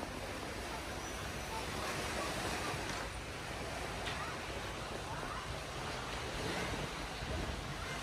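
Steady wash of small sea waves breaking on the beach.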